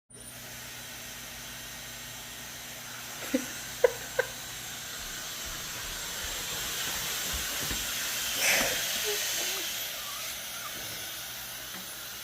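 A steady hissing, blowing noise that swells a little towards the middle. Three short rising chirps come about three to four seconds in.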